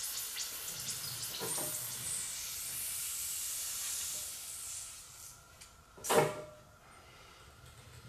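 Air hissing in and out of the loosened port caps of a 2-inch-bore, 10-inch-stroke double-acting hydraulic cylinder as the backhoe thumb is moved by hand, fading out after about five seconds. A single short knock comes about six seconds in.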